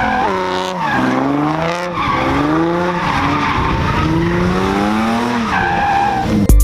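Nissan 350Z's 3.5-litre V6 revving hard during donuts and figure eights, engine pitch climbing and falling several times, over the hiss and squeal of the rear tyres skidding.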